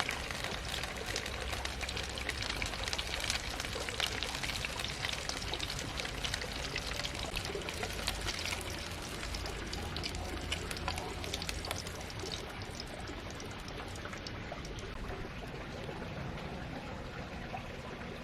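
Water pouring and splashing in a steady stream, the splashing growing softer after about twelve seconds.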